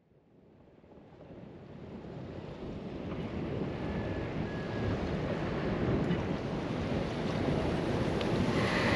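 Wind buffeting the microphone over choppy lagoon water lapping, fading in from silence over the first few seconds and then steady.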